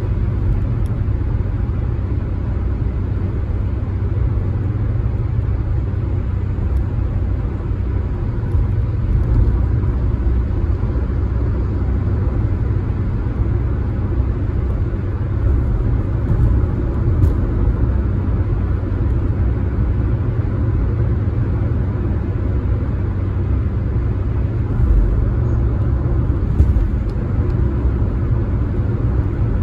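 Car being driven, a steady low rumble of road and engine noise with an occasional light bump.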